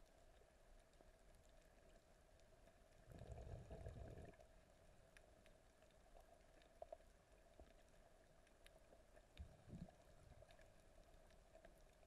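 Near silence from a camera underwater, broken by one short, muffled low rumble about three seconds in and a few faint clicks later on.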